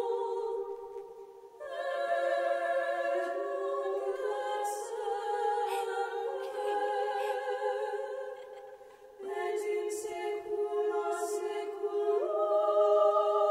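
Soundtrack music: a choir singing long held chords, unaccompanied, in slow phrases that break briefly about one and a half seconds in and again around nine seconds.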